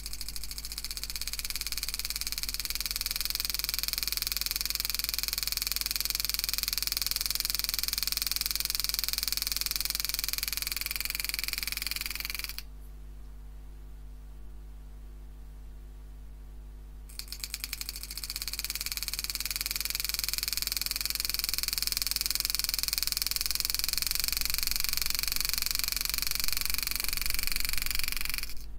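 Homemade motor-driven hand engraving machine hammering a 98-degree carbide graver into 304 stainless steel, a dense high buzz of fast strikes. It stops for about four seconds midway, then builds back up as the foot pedal brings the strike rate up, and it stops just before the end. A steady low hum runs underneath.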